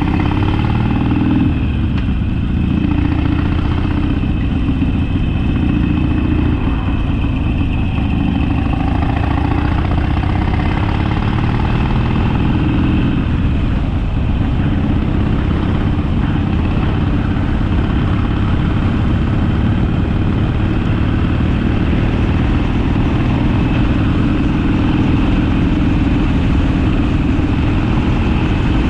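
Harley-Davidson Sportster's V-twin engine running while the bike is ridden. The engine note rises and falls over the first dozen seconds, then holds steady.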